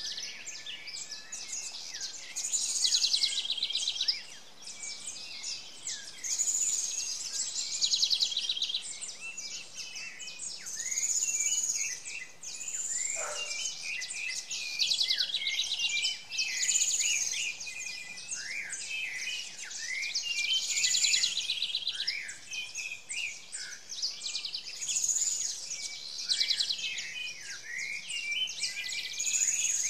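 Forest birds chirping, over a high, buzzy trill that repeats about every two seconds.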